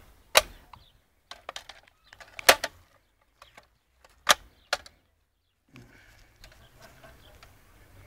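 Sharp clicks and knocks from handling an airsoft Barrett M99 replica as parts are inserted during a hop-up adjustment, a handful of them over the first five seconds. After that only a faint steady background remains.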